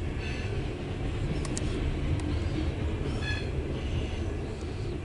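Loaded coal train's hopper cars rolling past, a steady rumble of wheels on the rails, heard from inside a car.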